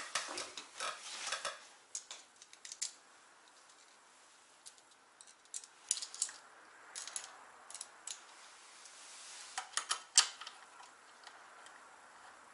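Light clicks and clinks of small metal hardware being handled: bolts, a hex key and a damper bracket picked up and fitted by hand. Clusters of sharp clicks in the first few seconds, a few more about halfway, and a louder cluster around ten seconds in.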